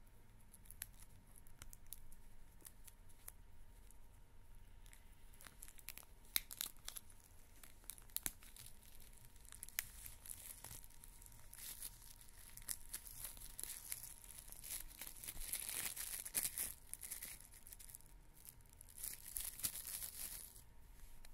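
Cellophane shrink wrap being torn off a CD case and crumpled in the hand: a run of sharp crackles and crinkles, densest about two-thirds of the way through.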